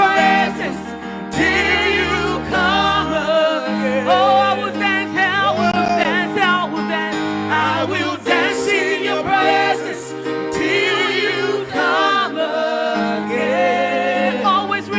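Live gospel worship music: singers holding long, wavering notes with vibrato over sustained band chords.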